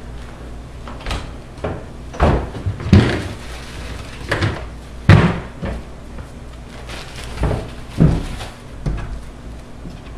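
Wooden kitchen cupboard doors being opened and shut, a string of separate knocks and bangs, the loudest about five seconds in, over a steady low hum.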